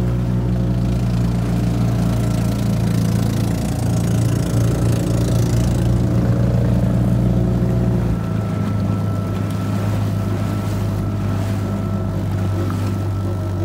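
Outboard motor running steadily under a folding boat under way, with water rushing along the hull. Its low note shifts slightly about eight seconds in.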